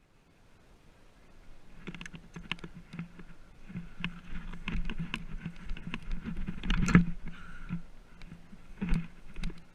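Irregular clicks and rustles of a player moving with his gear, with one sharper, louder knock about seven seconds in.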